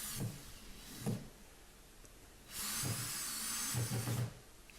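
Electric drill running in two short spells, its bit burring a shallow countersink hole into plasterboard so a screw head can sink flush. It runs briefly at the start and again for about two seconds from about two and a half seconds in, with a wavering high whine.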